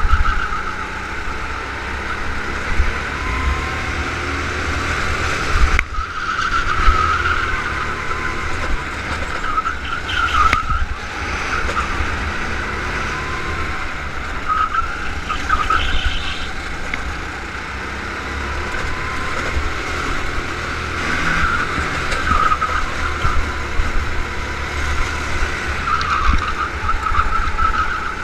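Go-kart engine heard from the kart's onboard camera during a lap, its note rising and falling again and again as the kart brakes and accelerates through the corners, over a constant low rumble.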